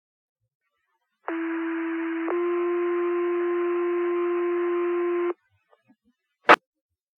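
Fire department two-tone sequential radio page: a steady tone of about one second steps straight into a slightly higher tone held for about three seconds, then cuts off. This is the alert tone sequence that sets off the volunteer firefighters' pagers. A sharp radio click follows about a second later.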